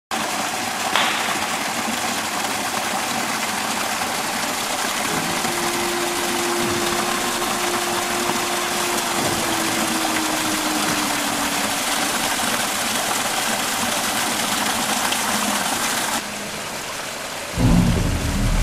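Small waterfall on a mountain stream, water falling and splashing steadily. About sixteen seconds in the water sound turns duller and quieter, and shortly after, music starts.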